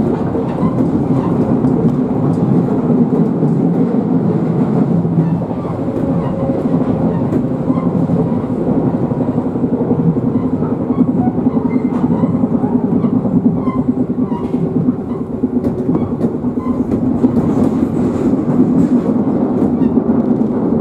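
Shizuoka Railway 1000 series electric train running steadily: a continuous rumble of wheels on rail, with a few faint clicks scattered through it.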